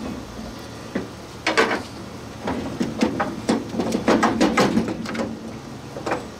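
Irregular metallic clicks and clunks as a front shock absorber is unbolted and worked up out of a 1963 Ford Thunderbird's steel shock tower. There is a single knock about a second in, a dense run of clicks through the middle, and another knock near the end.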